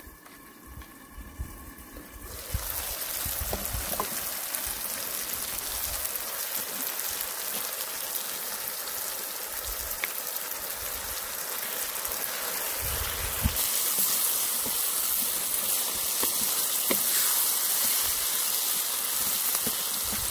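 Green beans, tomatoes and minced meat sizzling in a pan: a steady hiss that starts a couple of seconds in and grows louder about two-thirds of the way through.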